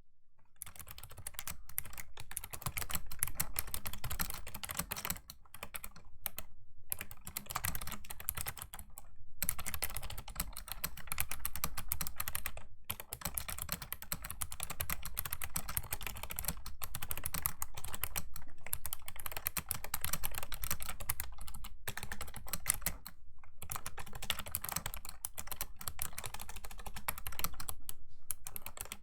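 Fast typing on a Razer Ornata Chroma V2 mecha-membrane keyboard: a dense run of clicky keystrokes, broken by a few brief pauses.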